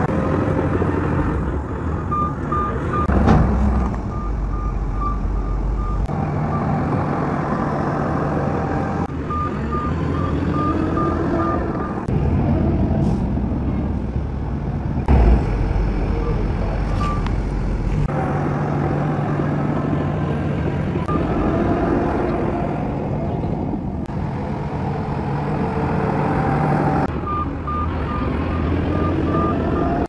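Diesel engines of a Shantui crawler bulldozer and dump trucks running under load while the dozer pushes dirt. A reverse alarm beeps in several stretches, and there are two short heavy thumps, one a few seconds in and one about halfway.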